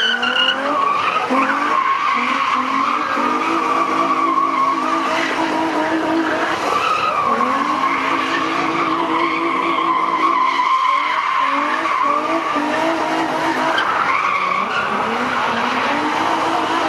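Nissan 350Z's V6 revving hard, its pitch climbing and dropping again and again as the rear tyres squeal through a continuous drift. The tyre squeal wavers but hardly breaks.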